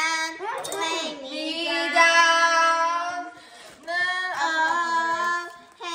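A child singing long held notes without accompaniment, sliding up into the first notes and holding two long steady tones, with a short break in the middle.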